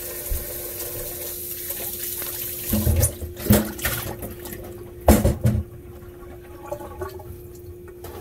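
Kitchen tap running, the water shutting off about three seconds in, followed by a few loud knocks and clatter. A steady hum runs underneath.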